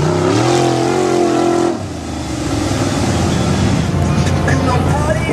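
Mud truck's engine revving hard and holding at high revs as it plows through mud and water. About two seconds in it gives way to a lower, rougher engine rumble.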